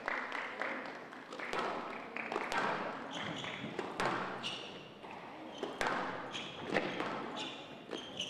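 Squash rally: the ball cracking sharply off rackets and the court walls at irregular intervals, with short squeaks of court shoes on the wooden floor.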